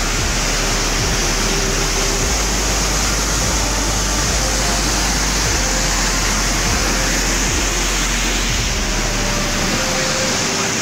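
Waterfall cascading over rock: a loud, steady rush of falling water.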